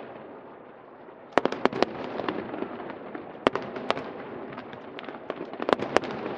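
Aerial fireworks bursting: a quick run of about four sharp bangs, two single bangs, then another quick cluster near the end, over a steady crackle.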